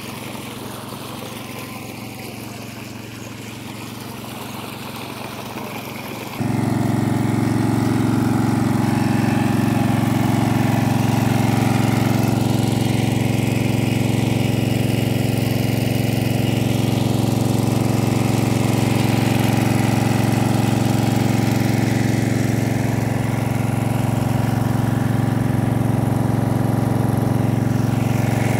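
Small engine-driven irrigation water pump running steadily. It is fainter at first, then suddenly louder about six seconds in.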